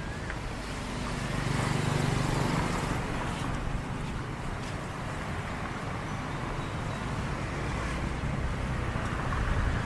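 Road traffic going by: a vehicle's engine rumble swells and fades between one and three seconds in, over a steady wash of traffic noise.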